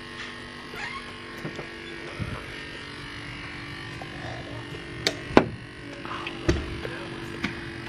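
Steady electric buzzing hum of the aerator pump keeping minnows alive. A few sharp knocks and clicks about five seconds in, the loudest just past halfway.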